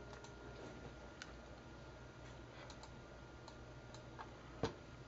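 Several faint, scattered clicks from a computer mouse and keyboard being worked, the loudest about four and a half seconds in, over a low steady hum.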